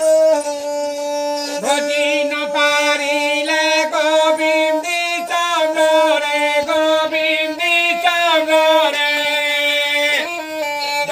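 A man singing a Kendara Gita devotional folk song in a wavering voice, to the steady, stepping melody of a kendara, the one-stringed folk instrument of Odisha's Jogi singers.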